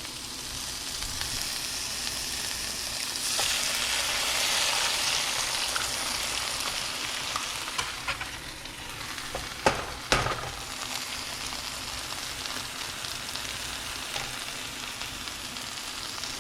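Asparagus, mushrooms and garlic sizzling in a frying pan, the sizzle swelling a few seconds in. Two sharp knocks come about ten seconds in.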